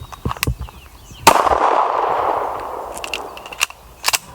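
A single pistol shot about a second in, its report ringing away over the next couple of seconds. Then a few sharp metallic clicks as the pistol is reloaded during a combat reload drill.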